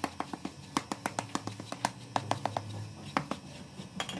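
Quick, irregular sharp taps and clicks of a shoemaker's metal iron tool knocking against a shoe on its last, as the toe stiffener is shaped.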